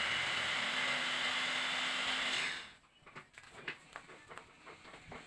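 A steady, loud hiss of rushing air with a faint low hum under it, cutting off sharply about two and a half seconds in, followed by a few light knocks and taps.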